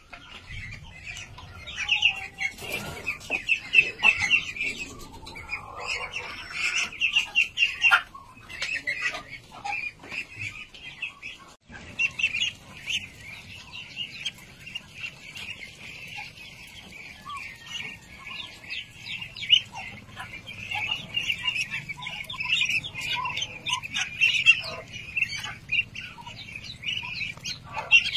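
A flock of young white Muscovy ducks peeping: a dense, continuous chorus of short high calls, broken off for a moment about twelve seconds in.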